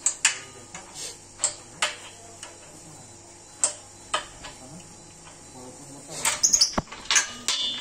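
Steel combination wrenches clinking on a bolt and nut on a steel frame as the bolt is loosened: scattered sharp metallic clicks, coming thicker near the end.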